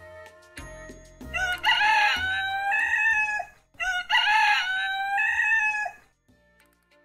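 Rooster crowing twice in quick succession, each a long cock-a-doodle-doo that ends in a held note.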